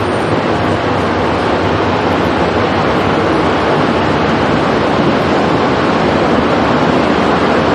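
Loud, steady rushing noise with no let-up.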